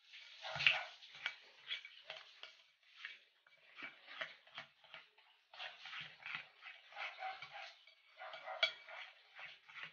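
Hands squeezing and mixing a thick flour, sugar and water batter in a glass bowl: irregular wet squelches and squishes.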